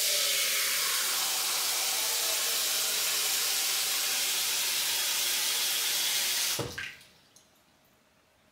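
Kitchen faucet running a steady stream of water into a metal pot as it is rinsed. The water is shut off about six and a half seconds in, with a short knock as it stops.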